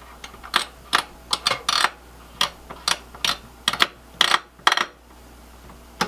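Screwdriver working the screws of a server's CPU heatsink: a run of sharp, irregular clicks, about three a second, that stops about a second before the end.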